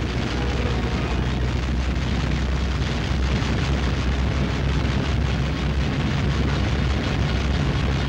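Loud, steady roar of a piston aircraft engine, a deep drone with a rushing noise over it and no breaks.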